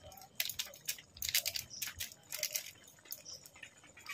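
Thick papaya and chana dal curry simmering in an open pan, its bubbles popping in soft, irregular crackles.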